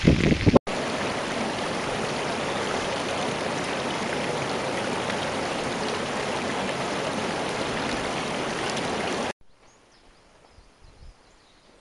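Shallow mountain stream running over stones, a steady rush of water that starts and stops abruptly, lasting about nine seconds. After it ends, only faint outdoor ambience with a few faint high chirps remains.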